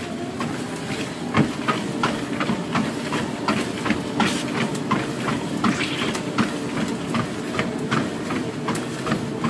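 Weslo Cadence treadmill running, its motor and belt giving a steady hum, with footfalls striking the moving belt at an even walking pace, about two a second.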